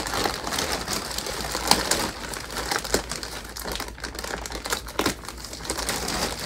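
Thick clear plastic wrap crinkling and rustling as it is pulled away from a rolled memory foam mattress and cut with scissors, with many short crackles throughout.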